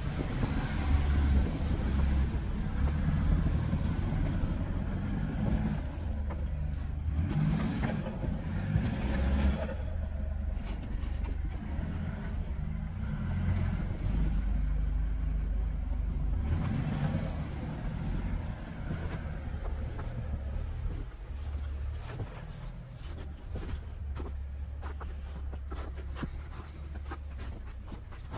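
Mitsubishi Pajero 4's 3.2-litre four-cylinder diesel engine running at low revs as the SUV creeps through deep snow, the revs swelling and easing every few seconds. Scattered light clicks come in near the end.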